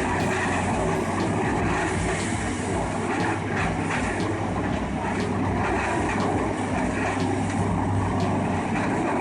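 Heavy machinery running steadily: a large engine drone with a steady hum, overlaid by dense rough noise and scattered faint clicks.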